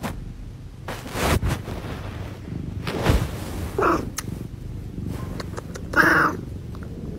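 Orange tabby cat purring steadily, held right up to the microphone, with a few brief handling rustles. Two short, higher-pitched calls break in about four and six seconds in.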